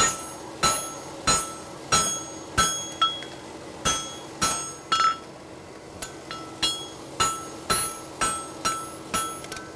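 Hammer blows on a hot steel horseshoe over the anvil, a steady rhythm of about three ringing strikes every two seconds as the shoe's inside edge is run during its cleanup heat. A little after five seconds in there is a brief pause and a few lighter taps before the regular blows resume.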